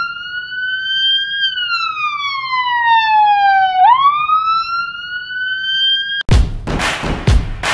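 Wailing siren sound effect: one tone that slowly rises, falls and climbs again, then cuts off abruptly about six seconds in. Music with a heavy beat starts in its place.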